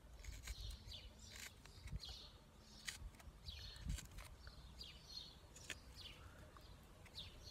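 Taramundi 445 knife whittling a thin wooden stick: faint, short scraping strokes a little more than once a second, with a few sharp clicks as the blade catches and chips the wood.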